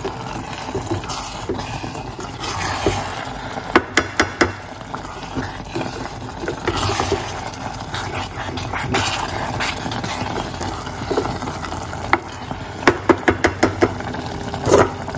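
Wooden spoon stirring quinoa and vegetables in a simmering stainless steel pot, over a steady bubbling hiss. The spoon knocks sharply against the pot in quick runs about four seconds in and again near the end.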